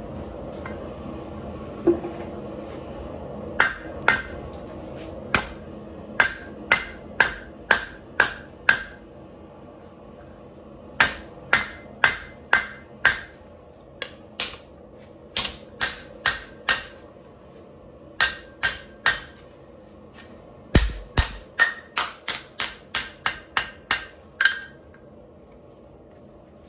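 Hand hammer forging hot 5160 steel on an anvil: sharp, ringing blows in runs of three to nine with short pauses between, the last run quicker, over a steady low hum.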